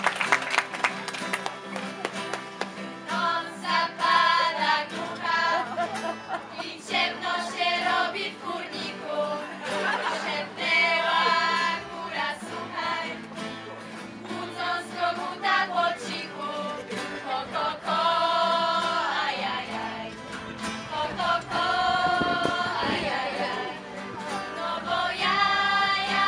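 A group of teenage students singing a song together over instrumental backing music, with applause dying away in the first second.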